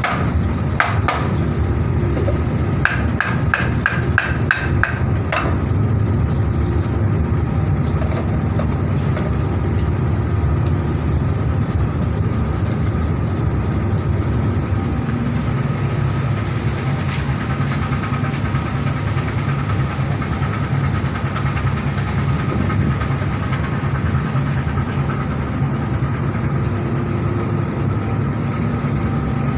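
Steady low rumble of a boat's engine. In the first few seconds, knocks and quick taps come from a wooden stick striking a knife as it is driven through a mahi-mahi on a wooden board.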